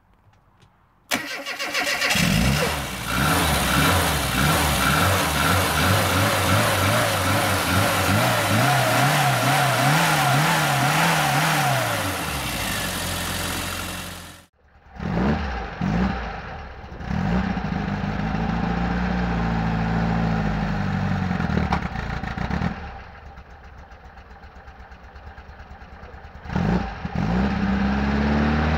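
A vehicle engine starting and running, its pitch rising and falling as it is revved. The sound comes in suddenly about a second in and cuts off abruptly about halfway through. After that come uneven revs, a quieter steady idle, and a rev up again near the end.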